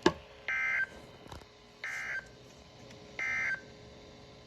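Emergency Alert System end-of-message on NOAA Weather Radio: three short bursts of SAME digital data tones, a rapid warbling between two high pitches, each about a third of a second long and spaced a little over a second apart, marking the end of the warning. A click comes just before the first burst.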